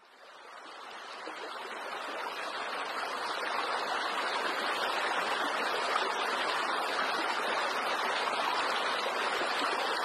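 A fast-flowing stream rushing, a steady water noise that fades in over the first few seconds.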